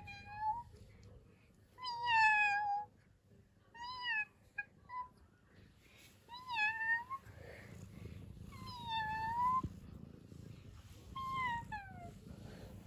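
Young tabby cat meowing repeatedly, a drawn-out high meow about every two seconds with two short chirp-like calls around four to five seconds in, over a faint low purr.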